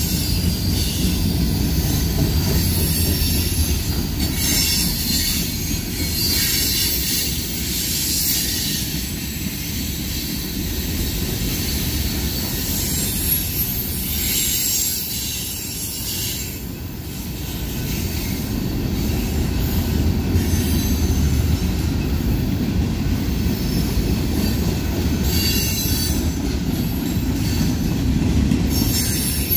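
Freight cars of a manifest train rolling steadily past: a continuous low rumble of steel wheels on rail, with high-pitched wheel squeal that rises and fades several times.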